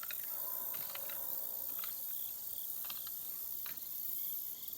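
A steady, high chorus of insects chirring, with a few faint ticks.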